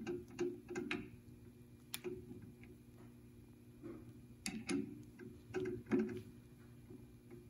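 Metal chuck key clicking and scraping in the drill press's keyed chuck as a drill bit is tightened, in short irregular clusters of clicks, over a steady low hum.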